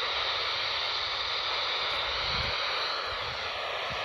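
Steady hiss of static from a weather radio receiver, with no voice on the channel.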